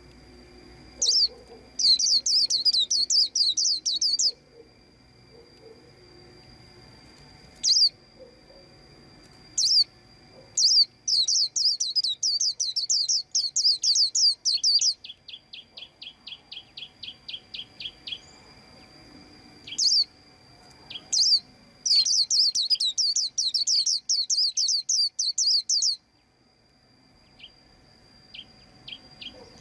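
White-eye chirping: loud bursts of rapid high chirps lasting a few seconds each, separated by single calls, with a slower run of about five ticking notes a second in the middle. A faint steady high tone sounds underneath throughout.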